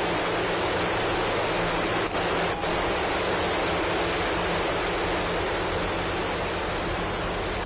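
Steady rushing static of an open aircraft radio transmission, with a faint low hum and two brief dropouts a couple of seconds in. It is the unexplained noise that followed the pilot's last words, which those who heard it thought sounded like something metallic scraping the side of the plane.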